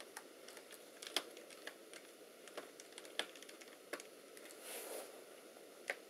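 Faint, irregular clicks and ticks of a screwdriver turning the small screws of an Alienware M14x laptop's memory shield, with a brief soft rustle near the end.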